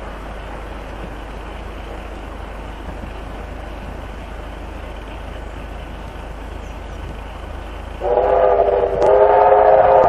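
Steady background noise, then about eight seconds in a steam locomotive whistle gives one loud, long blast.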